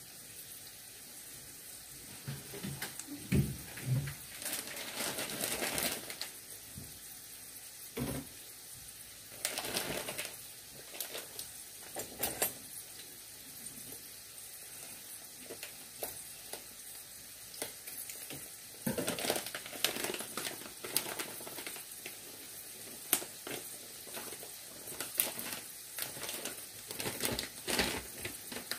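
Battered vegetable and shrimp fritters (okoy) shallow-frying in hot oil in a frying pan, sizzling steadily with irregular crackles and spatters. A few low knocks come about three to four seconds in.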